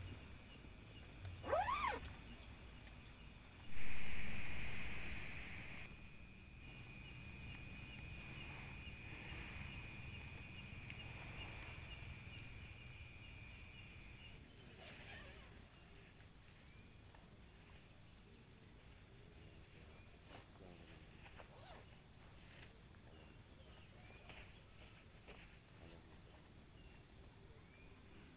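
Night insects, crickets, chirping in a steady high trill. About two seconds in there is a short rising sweep, and about four seconds in a sudden rustle that fades over two seconds.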